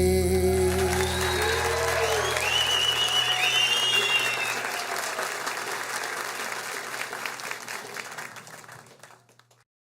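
Audience applause with some cheering over the last acoustic guitar chord ringing out. The applause fades away and stops near the end.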